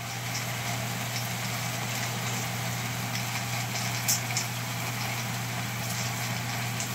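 Steady airy hiss of a long draw on a lit glass hand pipe, over a constant low hum. Two sharp clicks come about four seconds in.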